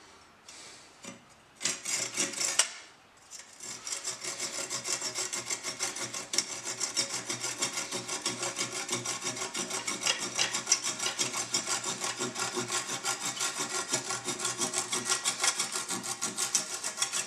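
Small folding hand saw cutting the end of a wooden axe handle down flush with the axe head. A few short strokes come first, then after a brief pause a long run of fast, even back-and-forth strokes.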